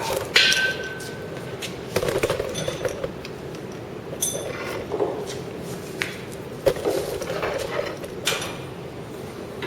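Metal tools and parts clinking and knocking as they are handled, with one strike about half a second in ringing briefly.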